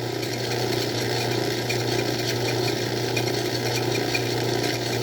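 Craftsman 109 bench lathe running steadily under power, with a steady low hum and a light, rapid mechanical ticking from its drive and gears.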